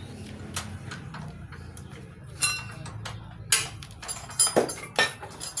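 Sharp metallic clinks and knocks of tools and parts being handled, a few single strikes and then a quick cluster near the end, over a low steady hum.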